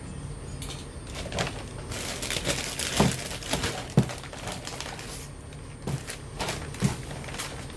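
Hands handling parts and packaging: crinkling and rustling for a few seconds, with several sharp knocks, the loudest about 3, 4 and 7 seconds in.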